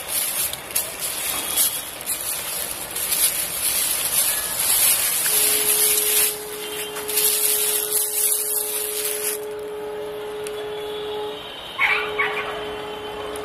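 Bubble wrap crinkling and rustling as it is pulled off a DSLR camera body, stopping about nine seconds in. A steady humming tone runs underneath from about five seconds in.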